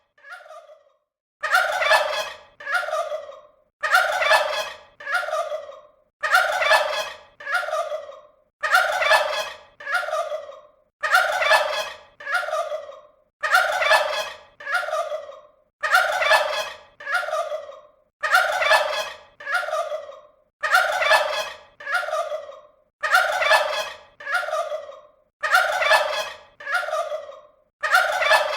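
Turkey gobbling over and over at an even pace: pairs of rattling calls, a longer one then a shorter one, about every two and a half seconds.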